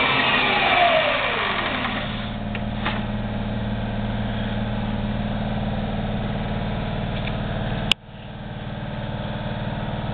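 Knee mill head's 2 hp three-phase motor and spindle winding down, a whine falling steadily in pitch over the first two seconds as the spindle is braked to a stop, then a steady low hum. A sharp click about eight seconds in.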